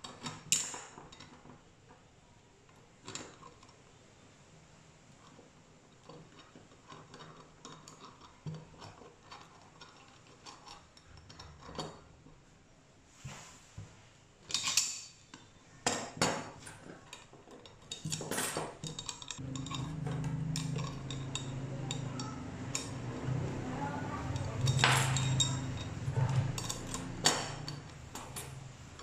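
Steel hacksaw frame and its small metal fittings clinking and knocking against each other and the wooden bench as the saw is put back together: the tensioning bolt, wing nut and blade being fitted. Scattered sharp clinks, busier in the second half, with a low steady hum joining in about two-thirds of the way through.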